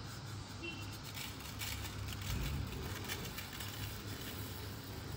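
Sesame seeds poured onto a ceramic plate, a soft scattered pattering over a steady low hum.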